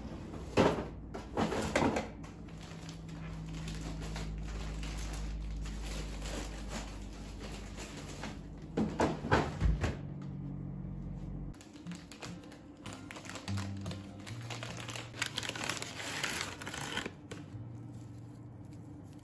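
Zip-top plastic freezer bags of bread crinkling as they are handled and packed into a freezer drawer, in two bursts about a second in and again around nine seconds, over a steady low hum. Later a softer crinkle of a plastic net bag and its packaging being handled.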